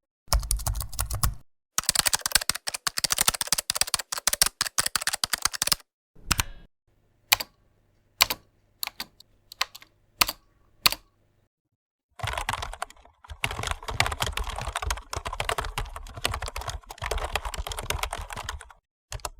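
Rapid clicking sound effect: two long runs of dense, sharp clicks, with a few seconds of single, irregularly spaced clicks over a faint low hum in between.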